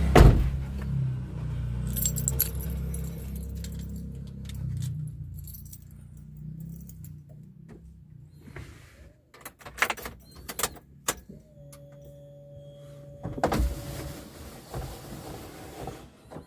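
Keys jangling with scattered clicks, over a low vehicle hum that fades away in the first half. A steady tone holds for about two seconds past the middle.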